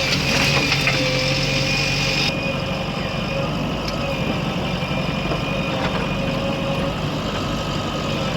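Diesel engine of a backhoe loader or tractor running steadily, with a thin steady whine over the engine hum. The high hiss drops away abruptly about two seconds in.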